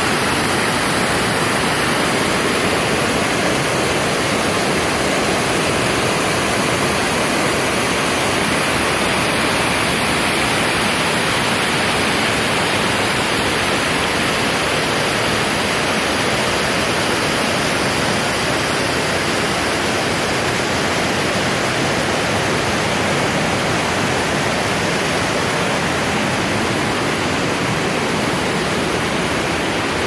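Creek water rushing over rocks in small cascades and rapids: a loud, steady rush.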